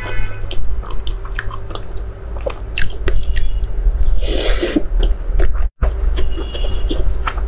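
Close-miked eating of saucy dumplings: wet chewing with many small mouth clicks and smacks, and a louder slurp of just under a second as a dumpling is bitten about four seconds in.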